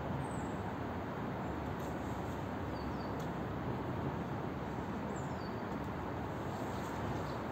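Steady outdoor background noise with a few faint, short, high chirps about three seconds apart.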